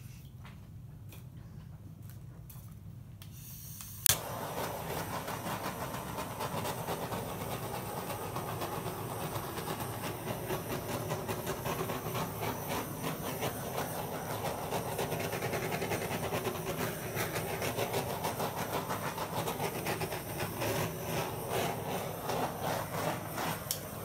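Handheld butane torch: a few faint clicks, then a sharp ignition click about four seconds in, after which the flame hisses steadily with a light flutter as it is passed over the wet acrylic paint.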